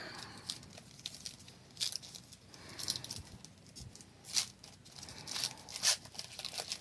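Trading-card pack wrapper torn open and the cards inside handled: a series of short rustles and crinkles, the loudest about 4.4 s and 6 s in.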